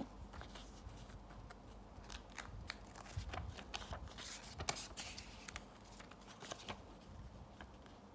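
Packaging being opened and handled by hand: an irregular run of small clicks and crinkles, busiest in the middle.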